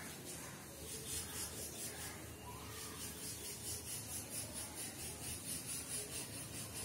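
Chalk scraping on a blackboard in short, even strokes, about three a second, as a wavy scalloped line is drawn.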